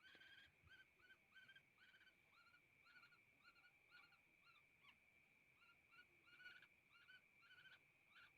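Young woodpecker, still hand-fed, calling faintly in short repeated chirps, about two or three a second, over a steady high whine.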